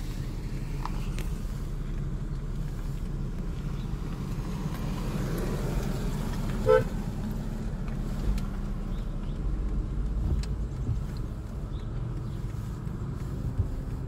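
Car cabin noise while driving: a steady low rumble of engine and road heard from inside the car. A short beep sounds once, about halfway through.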